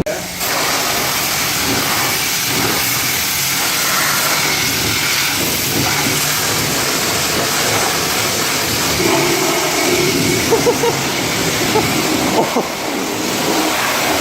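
Car-wash pressure washer wand spraying water, a steady hiss of high-pressure spray.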